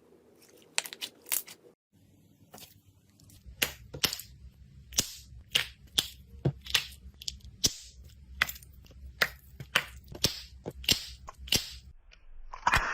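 Slime being worked by hand, giving a run of sharp pops and clicks about twice a second over a faint low hum.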